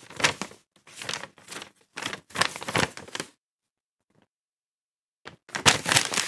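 A paper packing slip rustling and crinkling in the hands in several short bursts, then going silent for about two seconds before more rustling near the end.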